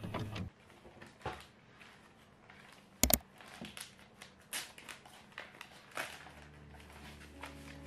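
Crinkling and rustling of a plastic courier mailer being torn open and unwrapped by hand: scattered small crackles, with one sharp snap about three seconds in.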